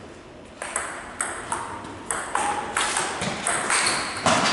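Table tennis rally: the ball clicking off rubber bats and bouncing on the table, about two or three pings a second, starting about half a second in, with the loudest knock near the end.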